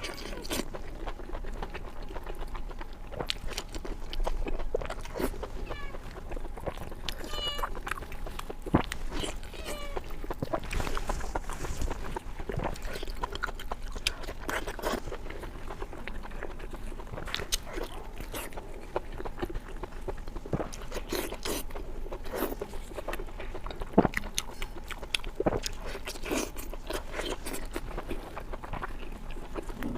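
Close-miked eating sounds: a person biting and chewing lamb intestine wrapped around lamb meat, with many short mouth clicks, the sharpest about nine seconds in and near twenty-four seconds.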